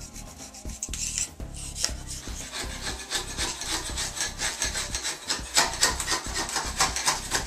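Hand-held razor-blade scraper scraping old caulk off the edge of a porcelain bathtub in short, quick rasping strokes. The strokes come faster and busier from about halfway through.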